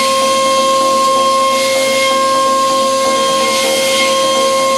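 DATRON high-speed milling spindle running an end mill across an aluminium disc, a steady high-pitched whine of several tones over a hiss from the cut that swells about every two seconds.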